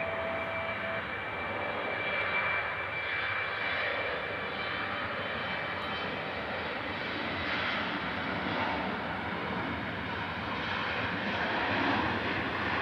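General Electric CF34 turbofan engines of an Embraer E195 airliner running as it moves along the runway, a steady jet noise. A thin high whine fades out about four seconds in, and the noise grows a little louder near the end.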